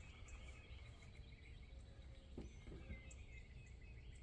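Near silence: faint outdoor background noise with a few faint bird chirps.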